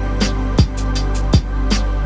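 Background music with a steady drum beat: a deep kick about every three-quarters of a second over held low tones, with light cymbal ticks.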